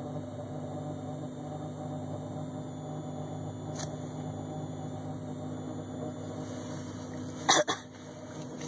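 A steady low buzz inside a car cabin, of unknown cause. Two sharp clicks come about seven and a half seconds in.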